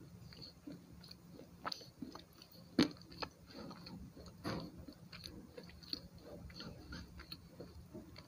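Slate pencil being bitten and chewed: sharp crunching snaps among gritty chewing, the loudest bite nearly three seconds in and another strong one about halfway through.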